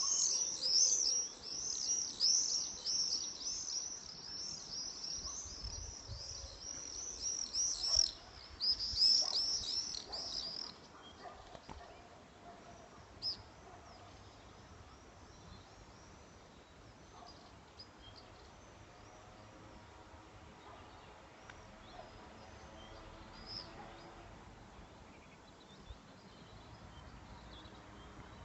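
Small birds chirping: a dense run of rapid, high-pitched chirps that thins out about ten seconds in to faint, scattered calls.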